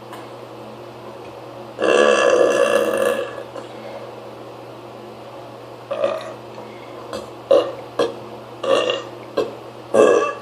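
A person forcing loud burps on purpose: one long, loud burp about two seconds in that lasts about a second and a half, then a run of short, sharp bursts through the last four seconds.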